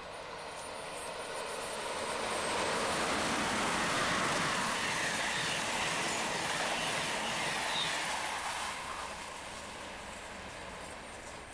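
A passenger train passing by: a rush of wheel and rail noise that swells over about three seconds, holds, and dies away after about nine seconds, with no horn.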